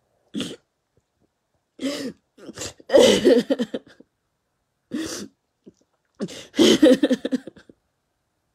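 A woman crying, her voice breaking into about five short bursts of sobbing cries separated by silence; the longest bursts come about three seconds in and again near the end.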